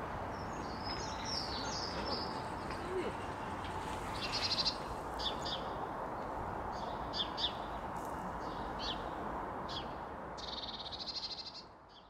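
House sparrows chirping: short bright chirps in scattered groups and a longer rapid chatter near the end, over a steady low background rumble, fading out at the end.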